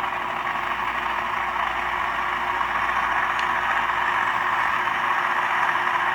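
Sound-equipped model locomotive's GE GEVO diesel engine sound running steadily while the locomotive stands still, played through the model's small onboard speaker.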